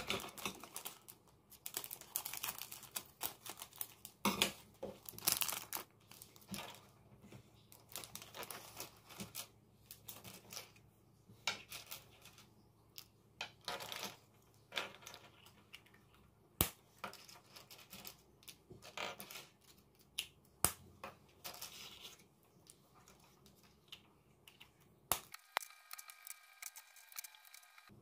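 Hollow plastic capsule balls for a toy claw machine being handled: irregular clicks and light rattles of the plastic halves being opened, closed and set down, with some crinkling of plastic packaging.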